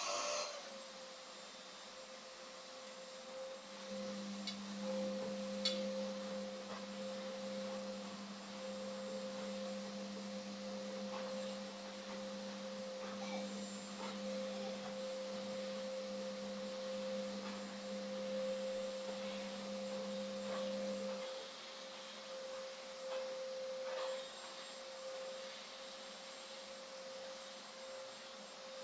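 Indesit washing machine tumbling its drum during the wash: a steady whine throughout, joined by a lower motor hum from about four seconds in that stops about three-quarters of the way through as the drum pauses. Faint clicks come now and then.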